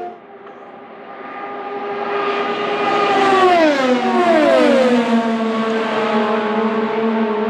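Two IndyCars, 2.2-litre twin-turbo V6s, pass at speed about half a second apart. The engine note swells as they approach, then drops sharply in pitch as they go by, and settles to a steadier tone.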